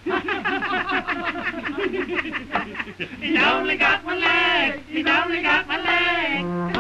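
Cartoon toy characters' voices laughing at the limping tin soldier, quick and chattering at first, then in longer wavering peals, with orchestral music underneath.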